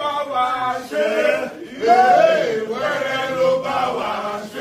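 A crowd of people chanting and singing together in unison, with long, held notes that bend in pitch.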